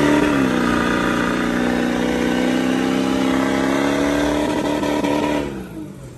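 Mega truck's engine heard from inside the cab, pulling under throttle as it drives into the mud: the pitch dips just after the start, holds steady and climbs slightly, then falls and drops away near the end as the throttle is let off.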